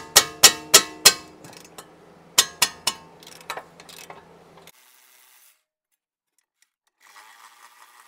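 Hand ratchet on a socket extension clicking as a 17 mm brake caliper bracket bolt is worked loose: a series of sharp clicks a few tenths of a second apart for about four seconds over a steady hum. After a cut, a faint whir from a cordless electric ratchet near the end.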